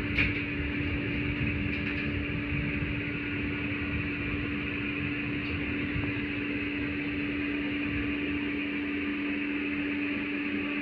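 Cabin noise inside an LVS-86 tram car: an even low noise with a constant steady hum, and one short click about a quarter of a second in.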